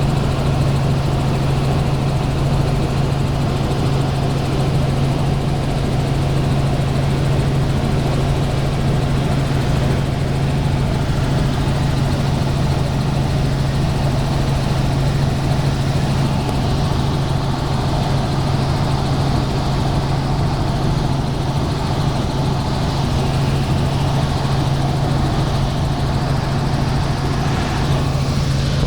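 Helicopter in flight: a steady engine-and-rotor drone with a strong low hum, unchanging throughout.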